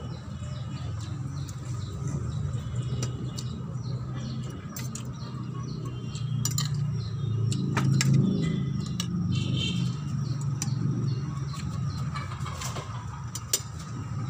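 A low, steady motor rumble, swelling for a few seconds about midway, with scattered small clicks and a few faint bird chirps over it.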